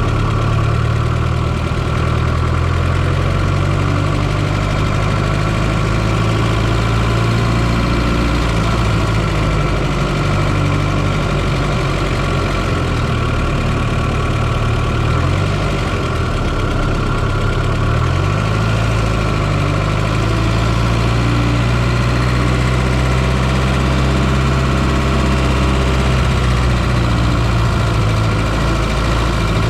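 1995 Fiat Coupe 2.0 16V turbocharged four-cylinder engine running steadily, heard close up from inside the engine bay. Its note wavers up and down for a few seconds about halfway through, then settles again.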